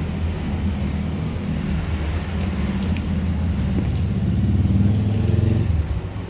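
A motor engine running, growing louder about four seconds in and dropping away shortly before the end.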